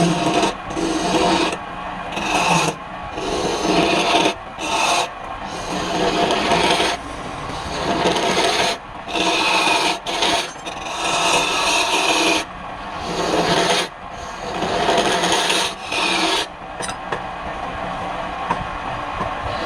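Wood being worked on a lathe: a tool or abrasive rasps against the spinning wooden piece in repeated passes of a second or two, with short breaks between them.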